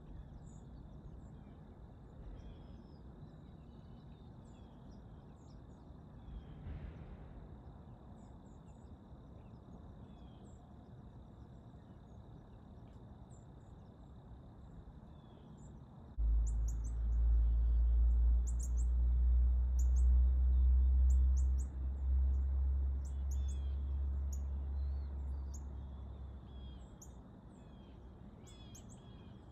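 Small songbirds chirping and calling with short, high notes. About halfway through, a loud low rumble starts suddenly, lasts some ten seconds, then fades.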